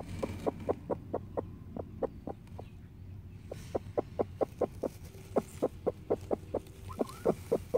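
Broody bantam hen on her nest giving a fast run of short clucks, about five a second, with a brief pause about three seconds in: the warning clucking of a sitting hen disturbed on her eggs.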